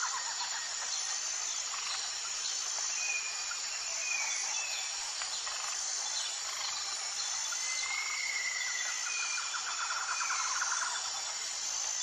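Outdoor insect chorus: a steady high-pitched buzz with a rapid pulsing trill near the end, and a few short bird chirps around a quarter and two-thirds of the way in.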